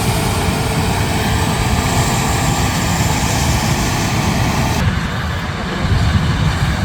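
Heavy diesel farm machinery at work harvesting corn: combine harvester and tractor engines running steadily, with a deep rumble under a broad hiss. The hiss drops away sharply about five seconds in.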